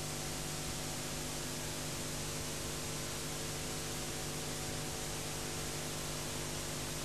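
Steady hiss with a low, steady hum underneath: the background noise of an old recording, with no other sound.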